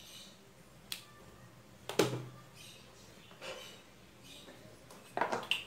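Small sharp plastic clicks and knocks from handling a plastic inline bed switch and wire connectors: one click about a second in, a louder click with a low knock about two seconds in, and a quick run of clicks near the end.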